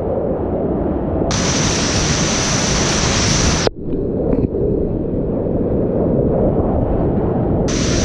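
Loud, steady rush of whitewater rapids around a kayak, picked up close to the water. The upper hiss cuts in abruptly about a second in, drops out with a brief gap just before four seconds in, and returns near the end.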